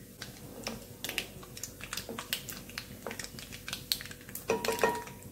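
Mustard seeds spluttering in hot oil in a non-stick kadai: a quick, irregular crackle of pops that gets busier and louder toward the end, with fennel seeds and urad dal frying alongside as a spatula stirs them.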